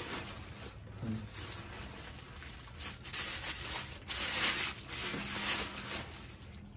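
Plastic packaging crinkling and rustling as it is pulled off a telescope tube, in uneven spells, loudest a little past halfway.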